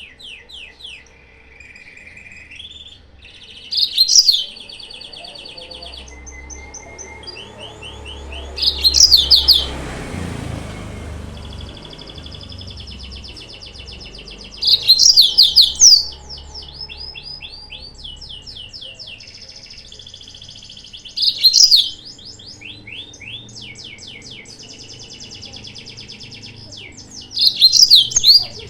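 Yellow-fronted canary (Mozambique canary) singing: loud, high, quick-sweeping song phrases about every six seconds, with quieter steady trilling between them. It is a lure recording meant to provoke rival males.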